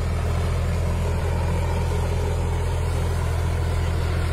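Farm tractor's diesel engine running steadily at an even speed.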